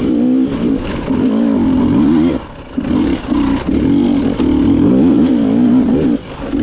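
Dirt bike engine revving up and down as the rider works the throttle, with the throttle chopped briefly about two and a half seconds in and again near the end.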